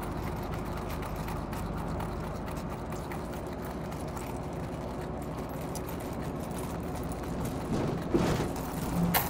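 Steady engine and road rumble of a city bus, heard from inside the passenger cabin, with a couple of brief clattering sounds near the end.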